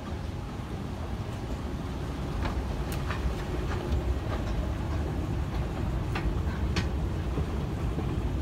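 Moving walkway running: a steady low rumble with scattered sharp clicks, growing slightly louder.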